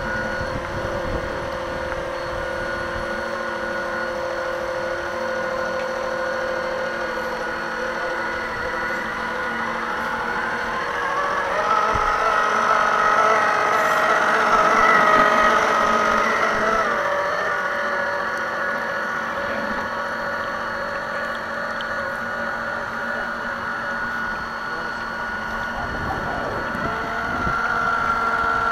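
Motors of radio-controlled model tugboats pushing a barge, a steady whine of several tones at once over wind and water. About halfway through it grows louder and slightly higher as one tug comes close, then eases back.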